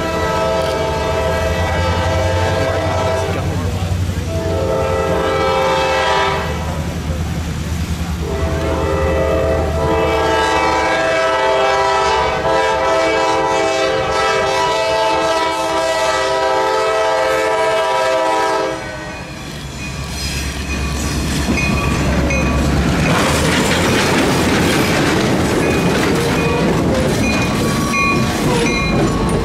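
Diesel locomotive horn sounding a series of long blasts over the low rumble of the approaching locomotives, the last blast held for about eight seconds. A few seconds after the horn stops, a sudden loud crash and a grinding, scraping noise as the locomotives strike the car at about 20 miles an hour and shove it along the track.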